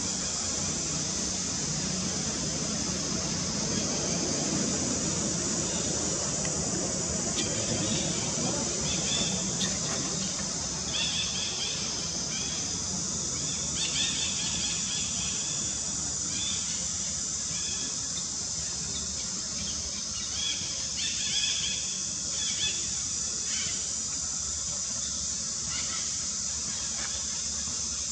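Steady high-pitched drone of an insect chorus, with short squeaky calls repeating from about seven seconds in until near the end.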